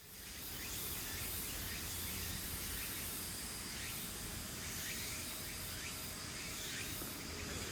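Steady background hiss and low hum, with faint short high chirps scattered throughout.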